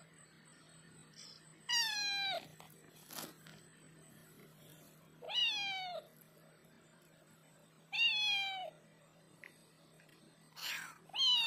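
Stray tabby cat meowing up at a person, asking for attention: about four loud, drawn-out meows a few seconds apart, each sliding down in pitch at its end.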